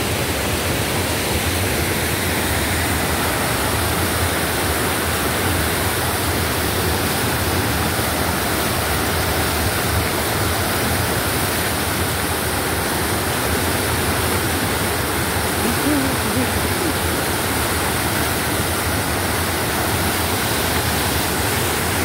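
Waterfall and mountain creek water crashing and rushing over granite boulders: a steady, unbroken roar of white water.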